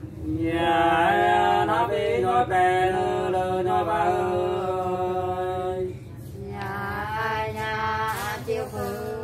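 Unaccompanied hát sli, the Nùng folk song of Lạng Sơn, sung by a man: long held notes that bend in pitch, in two phrases with a short break about six seconds in.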